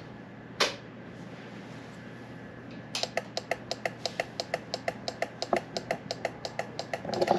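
Turn-signal flasher relay clicking rapidly, about five clicks a second: hyper flashing, the signals blinking too fast even with load resistors in line, which the owner thinks may need a new flasher relay. A single click comes about half a second before the clicking starts.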